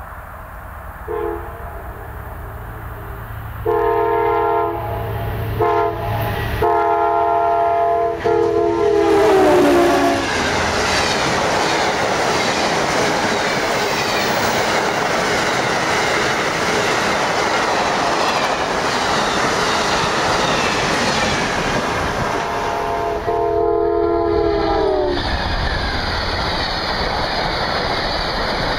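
Amtrak passenger train's multi-chime horn sounding the grade-crossing signal, long, long, short, long, its pitch dropping as the locomotive passes about ten seconds in. Then the steady rumble and clickety-clack of the passenger cars rolling by, with the horn sounding again briefly later on.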